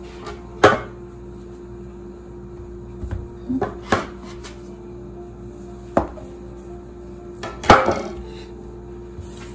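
Several sharp knocks and taps of a kitchen knife on a wooden board while pie-crust dough is divided, the loudest near the end, over soft background music.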